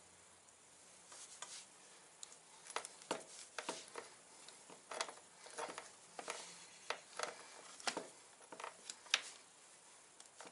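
Chain breaker tool being cranked on a motorcycle O-ring drive chain to press a pin out of a link: faint, irregular metallic clicks and clinks of the tool's bar handle and the chain links, starting about a second in and stopping shortly before the end.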